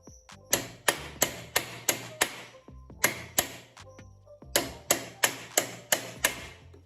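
Hammer blows on the motorcycle's right-side rear-axle chain adjuster, driving the wheel back to tighten the chain: six quick strikes, a pause, two more, then another six, about three a second.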